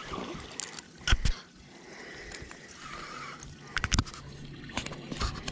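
Water sloshing and splashing around a small fishing boat, with short sharp knocks about a second in and again near four seconds. A faint low steady hum comes in near four seconds.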